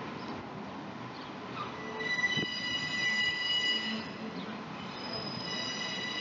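Steel wheels of a CP Rail caboose and diesel shunter squealing against the rails as the train rounds a curve at low speed. Several high, steady screeching tones start about two seconds in, drop out briefly after four seconds and come back, over a low rumble from the rolling train.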